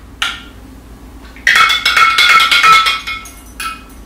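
Metal spoon stirring milk in a glass quart mason jar, clinking and ringing against the glass. One tap comes just after the start, then a quick run of clinks lasting about a second and a half, and a couple of light taps near the end.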